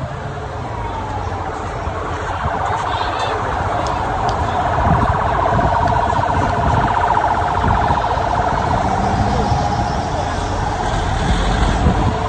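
A motorcade siren with a rapid warbling tone that grows louder over the first few seconds, over the low rumble of vehicles.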